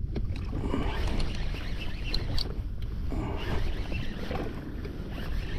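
Wind buffeting the microphone as a steady low rumble, with sea water lapping and splashing against a small boat.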